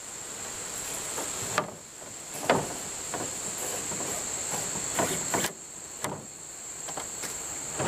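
Wooden poles knocking against a pickup truck bed several times as paracord is wound around them, over a steady high drone of insects.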